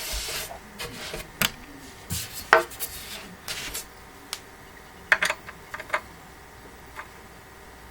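Screws in a printer stand's wooden panels and steel supports being gone over with a hand tool to check that they are tight: on-and-off scraping and rasping, with a quick cluster of sharp clicks about five seconds in.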